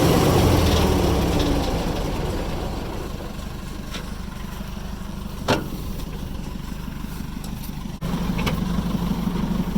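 A heavy-equipment diesel engine being shut off and running down over the first few seconds, while a low engine rumble carries on underneath. There is a sharp click about five and a half seconds in, and the engine noise jumps back up abruptly about eight seconds in.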